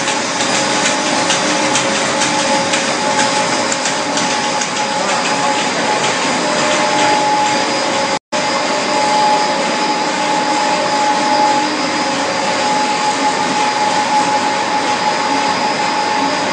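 Core-filling snack production line machinery running steadily, a loud even whir with a constant whine over it. The sound cuts out for a split second about eight seconds in.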